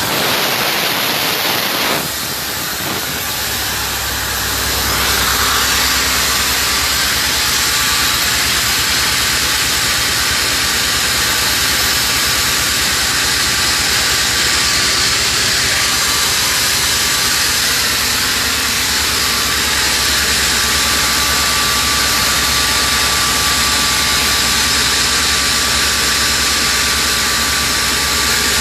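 Hangzhou Fortune oxygen plant machinery running: a loud hiss of escaping gas for about two seconds, then a dip and a rise into a steady drone with a low hum and a faint high whine.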